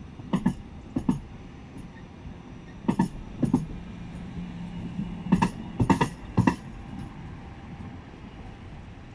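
Articulated tram running over a track crossing: its wheels strike the crossing gaps in a series of sharp clacks, several in close pairs as each bogie passes, with a faint steady hum between them.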